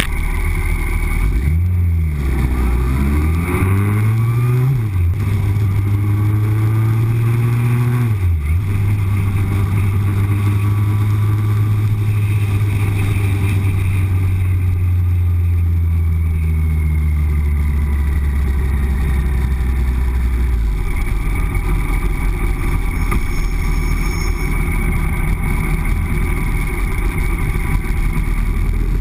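Yamaha R1's inline-four engine pulling away and shifting up through the gears, its pitch climbing and dropping back at each shift over the first eight seconds. It then holds a steady cruise until its note falls away about twenty seconds in.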